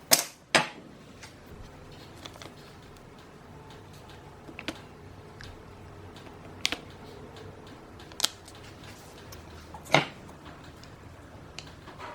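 Scattered sharp clicks and knocks of hard objects being handled, two close together near the start and four more spread through the rest, over a faint steady hum.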